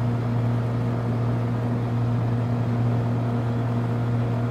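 HVAC outdoor condensing unit running with its compressor under load: a steady low electrical hum with a fainter higher overtone over the even rush of the unit running.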